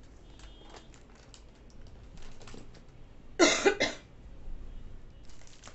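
A woman coughing, a short burst of two or three coughs about three and a half seconds in, after some faint clicks of handling. Near the end, plastic wrapping starts to crinkle.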